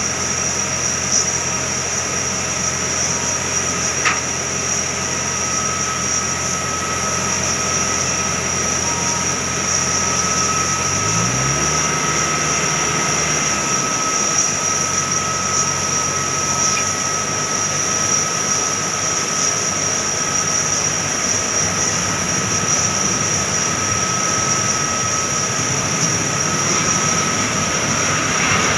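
Steady high-pitched whine of jet aircraft on an airport apron, over a low engine hum whose pitch glides up and shifts about eleven seconds in.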